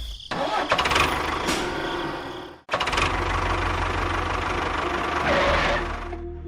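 A motor running steadily with a low rumble, cutting out abruptly about two and a half seconds in, then running again.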